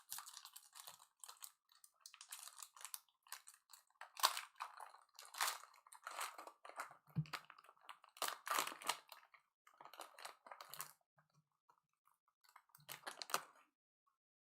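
Trading card packs being torn open and handled, their foil wrappers crinkling and tearing in irregular short bursts.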